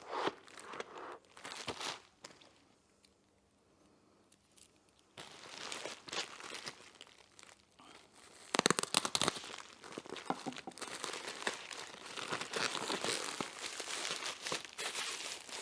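Keyboard packaging being opened by hand: plastic wrapping crinkling and tearing. It goes nearly silent for a few seconds about two seconds in, and the crinkling resumes with a louder burst of handling about eight and a half seconds in.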